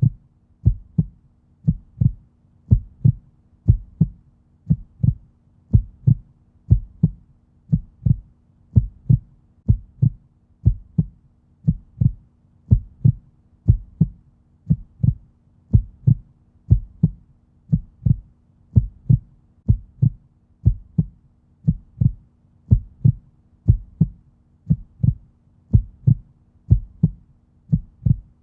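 Heartbeat sound effect: a steady double thump, about one beat a second, over a faint low hum.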